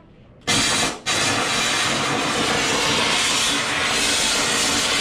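Teddy bear stuffing machine blowing stuffing through its nozzle into a bear: a loud, steady rush of air that starts about half a second in, breaks off for an instant about a second in, then runs on.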